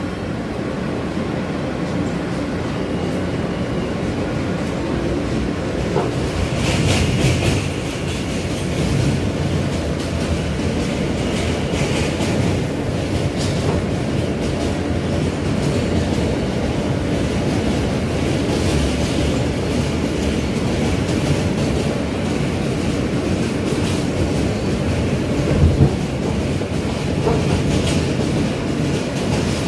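New York City Subway J train heard from inside the car as it pulls out and runs along elevated track: a steady rumble of wheels on rail, clicking over the rail joints, with a few brief higher-pitched stretches and a louder clack near the end.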